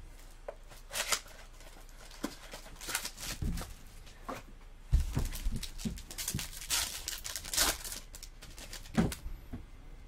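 Foil wrapper of a baseball card pack being torn open and crinkled by hand in irregular bursts, with a few soft knocks from handling the pack.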